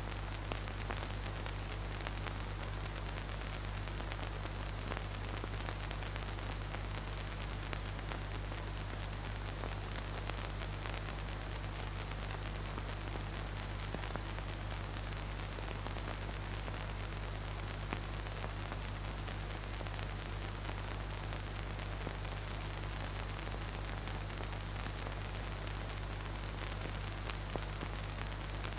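Steady hiss with a low, even mains hum, no other sound: the background noise of an old video transfer.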